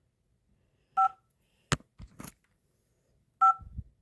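2GIG GC2 alarm control panel giving short two-tone key-press beeps, twice, as its buttons are pressed. A sharp click and some light handling noise come between the beeps.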